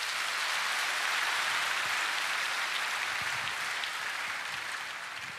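Audience applauding, strongest in the first couple of seconds and gradually dying away near the end.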